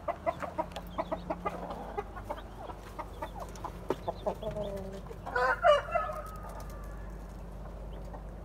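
Chickens clucking in a quick run of short notes, then one loud drawn-out call about five seconds in that trails off.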